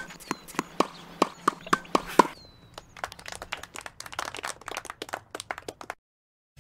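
A run of short, sharp clicks or knocks, about three or four a second. About three seconds in they give way to a faster, denser patter of clicks. Just before six seconds everything cuts off to silence.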